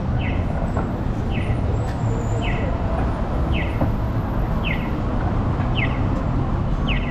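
Audible pedestrian crossing signal chirping at a steady pace, about one short falling chirp a second, over the steady low rumble of city traffic.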